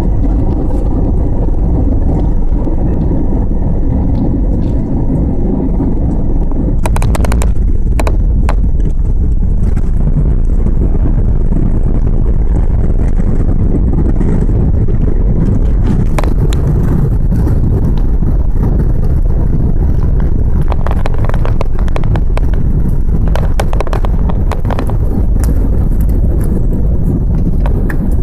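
Steady low rumble of an Airbus A320 heard from inside the cabin as it rolls on the ground, with bouts of rattling and clicking about a quarter of the way in and again through the middle.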